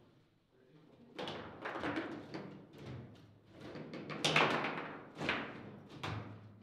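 Table-football game in fast play: a rapid, irregular run of knocks and clacks as the plastic figures strike the ball and the rods are slammed and jerked against the table, starting about a second in.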